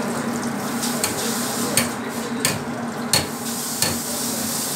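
Hot oil sizzling and bubbling in a commercial deep fryer as a wire basket of breaded chicken strips is lifted out to drain, over a steady hum. Four sharp metal knocks come about two-thirds of a second apart from the middle onward.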